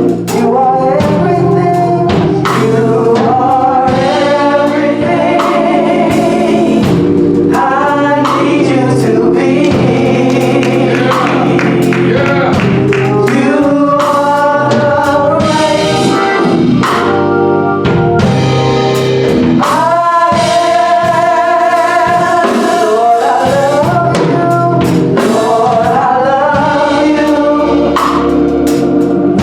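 Gospel choir singing with instrumental backing.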